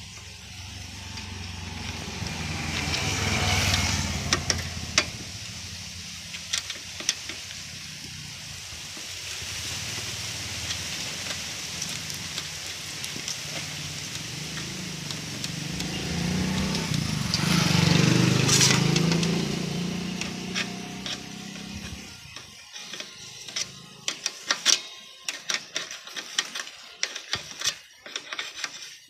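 Motor vehicle engines passing by twice, each swelling up and fading away, followed from about three-quarters of the way in by a run of sharp light metallic clicks and clinks of hand tools on the motorcycle wheel.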